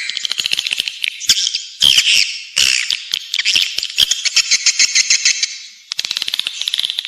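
Recorded swiftlet lure call: fast trains of sharp clicks mixed with high twittering chirps, with a brief lull about six seconds in.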